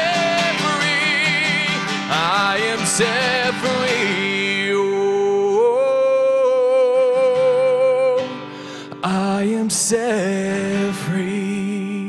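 Live worship song: a singer's voice slides through wavering runs over a strummed acoustic guitar, then holds a long note. The music dips briefly about eight seconds in, then picks up again.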